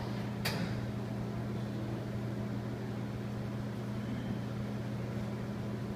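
Coffee vending machine running with a steady low hum as it makes a cup of coffee, with a single click about half a second in.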